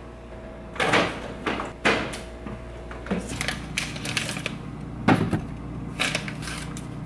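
A refrigerator door is opened and things are handled inside it: a series of irregular knocks and clatters over a low steady hum.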